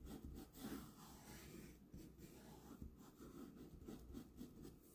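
Faint rubbing and scratching of a paintbrush working paint onto a canvas in irregular strokes.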